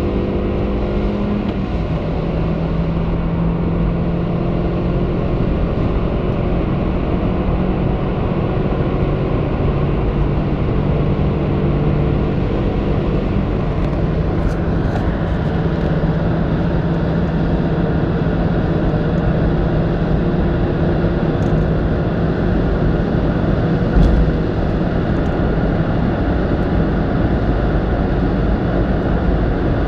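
A Toyota Yaris Verso's 1.3-litre four-cylinder petrol engine pulls hard under full throttle at high speed. It is heard from inside the cabin over steady road and wind noise, and its note rises only slowly as the car climbs from about 130 to 180 km/h.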